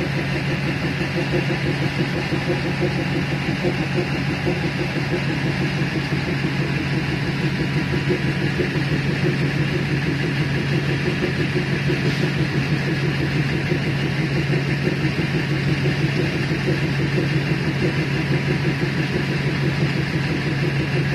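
Diesel engine of a DEMU train idling steadily, heard from inside the driver's cab with the train stopped.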